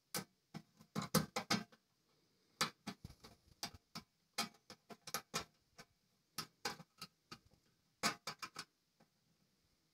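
Screwdriver driving the screws that hold a computer motherboard to its sheet-metal frame: light, irregular clicks and ticks of the tool and screws on metal, coming in short runs with a pause near the end.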